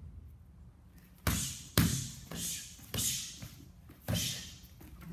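Muay Thai strikes (punches, elbows, knees and kicks) landing on Thai pads and a belly pad held by a partner. There are about five sharp hits in quick, uneven succession, the loudest two coming close together a little over a second in.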